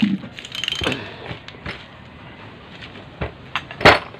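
Metal tools and engine parts clinking and knocking: a few scattered taps, with one sharp knock near the end.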